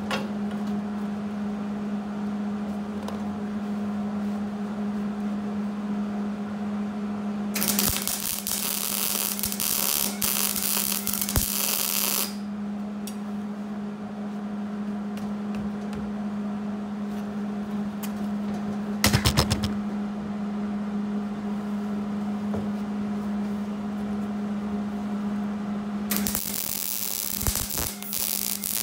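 Wire-feed welding arc crackling and sizzling in three runs: a long bead of about five seconds, a brief tack, then another bead starting near the end. A steady electrical hum runs underneath throughout.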